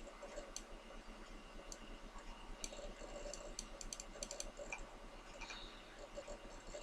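Faint, scattered clicks of a computer keyboard and mouse, with a quick run of clicks about three to four seconds in, over a low steady hum.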